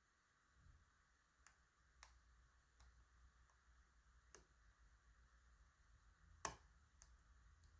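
Faint, irregular clicks of a hook pick working the pins inside a DOM ix Twinstar high-security lock cylinder, about seven in all, the sharpest about six and a half seconds in.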